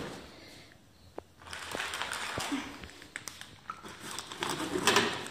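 Plastic packets and bags rustling, with scattered light knocks and clicks as groceries are put onto refrigerator shelves; the rustling is loudest near the end.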